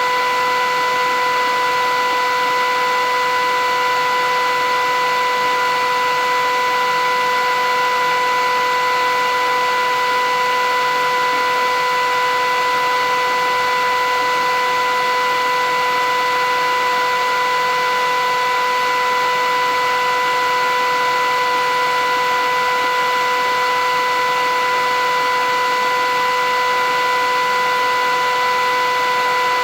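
Philips 8000 series vacuum cleaner running continuously at a constant speed: a steady rush of air under an even motor whine that never changes.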